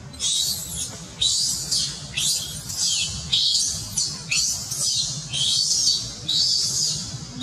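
Infant long-tailed macaque screaming: repeated high-pitched shrieks, about one a second, each dropping in pitch at the end. These are distress cries while its mother roughly handles it.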